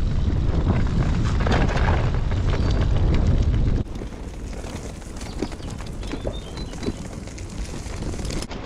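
Brompton folding bicycle riding over a dirt and gravel track: a loud rumble of wind buffeting the microphone, with tyres crunching and rattling over the stones. It drops off suddenly about four seconds in to a much quieter ride with scattered light clicks from the tyres on the path.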